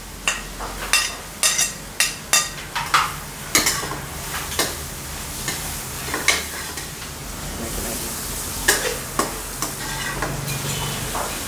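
Carrots and capsicum sizzling in a metal pan over high heat, with a metal spoon clinking and scraping as boiled beans are scraped off a ceramic plate into the pan and stirred in. The sharp clinks come mostly in the first half; the sizzle runs steadily under them.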